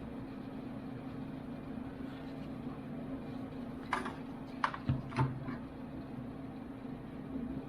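Steady low hum with three short clicks or taps in quick succession about four to five seconds in, typical of handling a small plastic item and its packaging.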